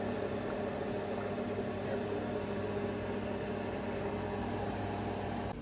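Pot of water at a hard boil on an electric stove: a steady hiss with a low hum under it, cutting off near the end.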